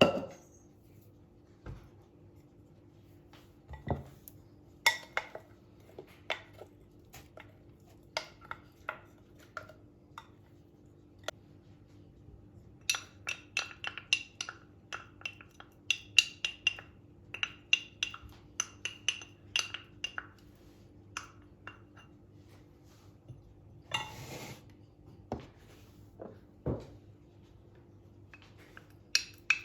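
Kitchenware clinking: a utensil knocking against dishes in short, ringing strikes, scattered at first and then in a quick irregular run through the middle, with a brief scrape about two-thirds of the way through.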